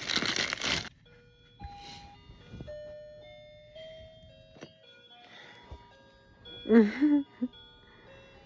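Wrapping paper crinkling for about the first second, then a simple tinkling melody of single held notes, like a chime or music-box tune. A short vocal sound comes near the seven-second mark.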